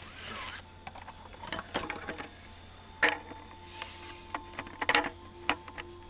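Clicks and clatters of a folding metal-framed camp table being handled and set up, with two sharper knocks about three and five seconds in.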